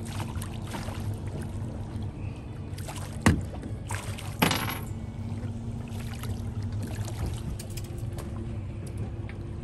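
Boat's outboard motor running steadily with a low hum, with two sharp knocks, about three seconds and four and a half seconds in.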